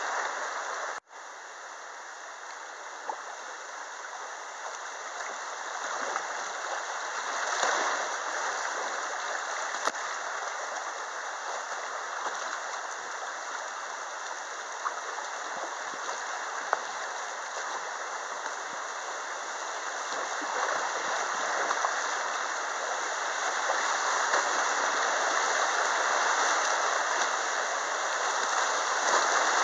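Rushing river water heard from a kayak running riffles and small rapids: a steady hiss of whitewater that grows louder toward the end. The sound cuts out for an instant about a second in, and a few sharp clicks sound through it.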